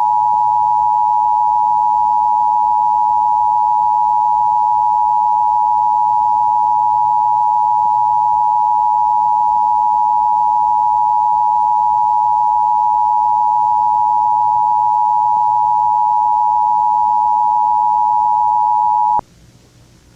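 Emergency Broadcast System attention signal: a steady two-tone alarm (about 853 and 960 Hz) held unbroken at full loudness for about twenty seconds, then cut off sharply near the end.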